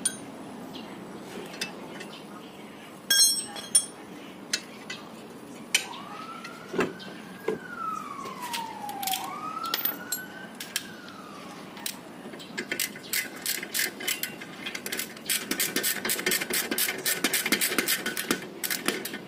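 Metal hand tools clinking on a car's front steering knuckle and ball joint, with a few sharp clinks a few seconds in. A siren wails up and down twice in the background midway. Near the end comes a fast, rapid run of metallic clicks from the tool work for several seconds.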